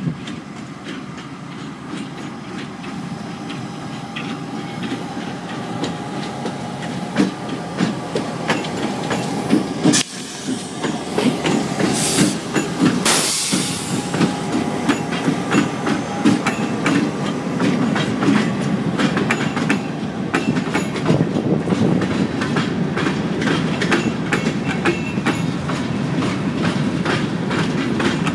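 Two EMD GP38-2 diesel locomotives, each with a non-turbocharged 16-cylinder two-stroke engine, approach and pass close by, growing louder over the first half. A brief hiss comes about halfway through. Then freight cars roll past with rapid, steady wheel clicks over the rail joints.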